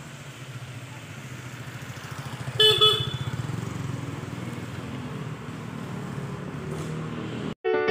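Street traffic: a passing motor vehicle's engine grows louder, and a horn gives two quick toots about two and a half seconds in. Piano music starts right at the end.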